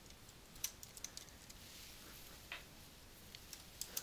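Faint, scattered computer keyboard keystrokes as a word is typed, with a few close together near the end.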